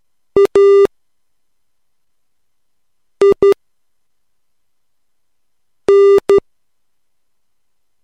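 Morse code practice tone, a steady buzzy beep near 400 Hz, sending three single letters slowly: dit-dah (A), then dit-dit (I) about three seconds later, then dah-dit (N), with long silences between letters.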